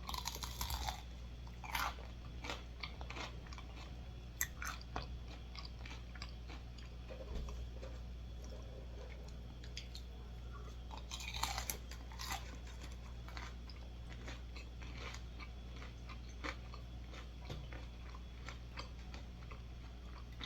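A person chewing and biting food close to the microphone, with irregular crunchy clicks and smacks. Louder bites come right at the start, near two seconds and again around eleven to twelve seconds, over a steady low hum.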